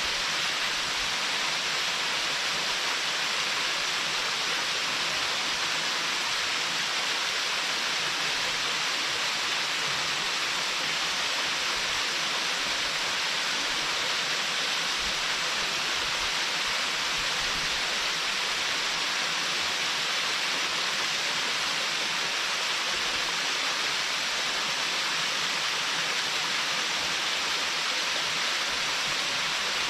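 Waterfall spilling down a rock face with no plunge pool: a steady, even rush of falling water.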